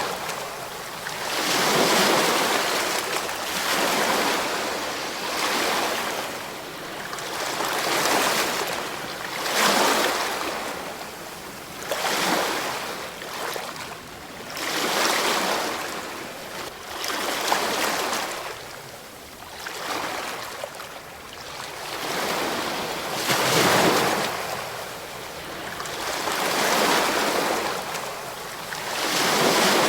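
Ocean waves breaking on a shore, surging and falling away about every two to three seconds.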